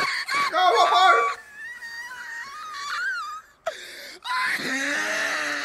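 A man's high-pitched, wavering wail of a laugh, like a pig getting slaughtered, coming in several stretches with short breaks.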